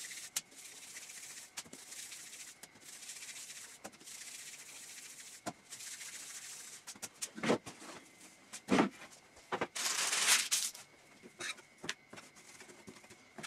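Floury hands rolling bread-roll dough into balls between the palms, a soft steady rubbing, with a few short knocks about halfway through as rolls are set down and the dough is worked on a wooden board.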